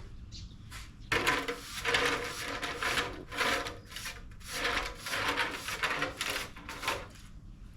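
Rhythmic scraping strokes of cleaning, something being scrubbed or rubbed over a surface, starting about a second in and stopping near the end, roughly nine strokes at one to two a second.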